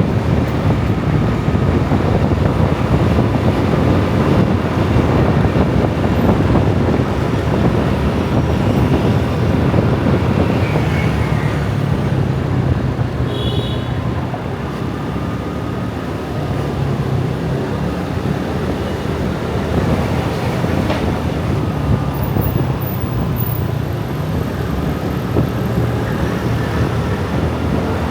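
Heavy motor-scooter traffic streaming past: a steady, dense rumble of many small engines and tyres, easing a little midway.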